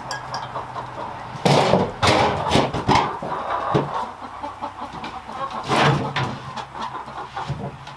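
Hens clucking, with several louder short bursts of handling noise from a wooden box and its lid.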